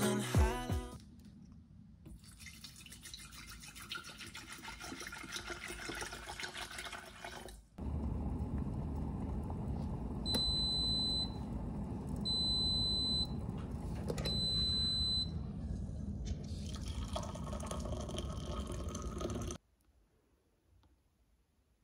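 Hurom glass electric kettle heating water toward the boil, a steady rumbling hiss, with three long high beeps from its control panel in the middle. A quieter crackling hiss comes before it, and a different water sound follows before it all stops abruptly.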